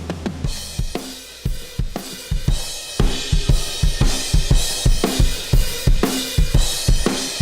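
Recorded live drum kit playing a groove, with kick drum, snare, hi-hats and cymbals, heard as a mixed playback with compression on the master bus. The playing gets louder and fuller about three seconds in.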